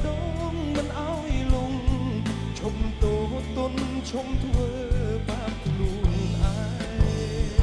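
Live band playing a Khmer pop song: a drum kit keeping the beat with cymbal and drum strikes under a sung melody and bass.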